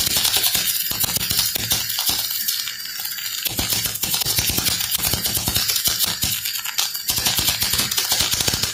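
Electric welding arc crackling steadily over a low hum, thinning briefly about three seconds in.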